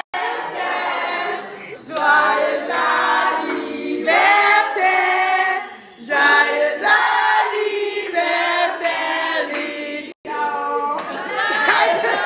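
Several voices singing together in chorus, broken by abrupt cuts every few seconds where the clips are spliced.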